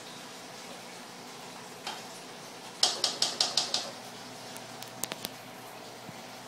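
Steady bubbling, running-water noise of a reef aquarium's circulation, broken about three seconds in by a quick run of about six sharp clicks, with a single click just before and three more about five seconds in.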